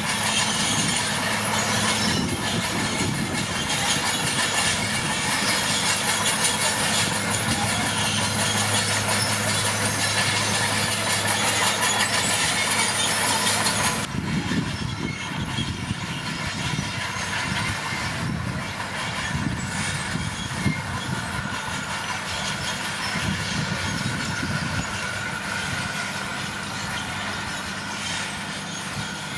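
Komatsu D41P crawler bulldozer working: diesel engine running steadily under the rattle and squeal of its steel tracks. The sound changes abruptly about halfway through, with less hiss in the second half.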